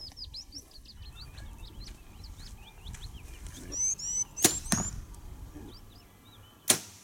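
Compound bow shot, the string's release followed about a third of a second later by the arrow hitting a target; near the end the bow is released again with a sharp crack.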